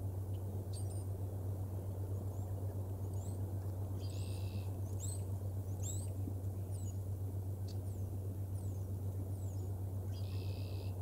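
Faint, quick chirps of small songbirds scattered throughout, with two short buzzy calls about four seconds in and near the end, over a steady low hum from the nest microphone.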